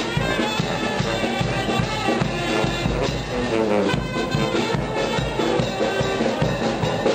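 Marching brass band playing a tune, with a sousaphone, a bass drum and cymbals keeping the beat under the brass.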